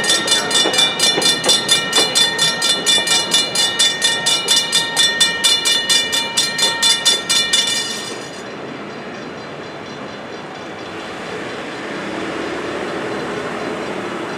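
Railroad grade-crossing warning bell ringing fast and steadily, about two to three strokes a second, over the rolling noise of a passing train. The bell stops about eight seconds in as the train clears the crossing, leaving a steady, quieter rumble.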